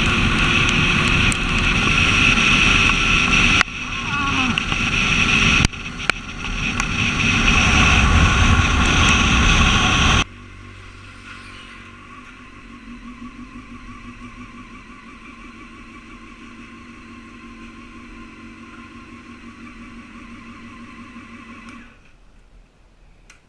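Motorcycle riding at speed, its engine under heavy wind rush on the camera microphone, dipping briefly twice. About ten seconds in the sound drops suddenly to a much quieter steady engine hum, which falls away near the end.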